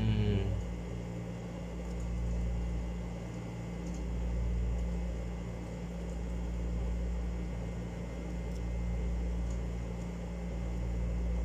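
Steady low machine hum with a rumble underneath, swelling and easing every couple of seconds, with a few faint clicks.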